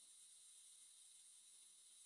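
Near silence: a faint, steady high-pitched hiss of background noise.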